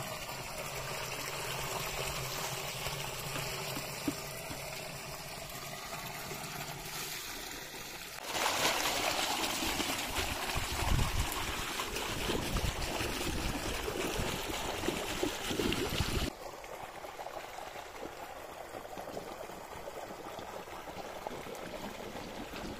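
Irrigation water from a pump-fed pipe. It pours into a plastic drum, then gushes out much louder onto grass from about eight seconds in, then runs more quietly along a shallow earthen channel from about sixteen seconds.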